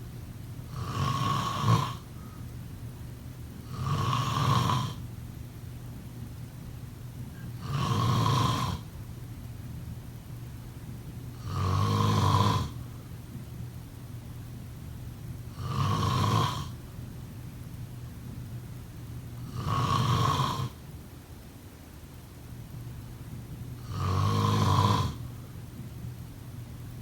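A sleeping person snoring: seven regular snores, each about a second long, coming about every four seconds.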